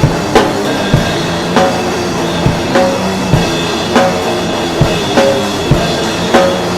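Band playing instrumental music: a drum kit keeps a steady beat, a hit roughly every half second, under sustained pitched instruments.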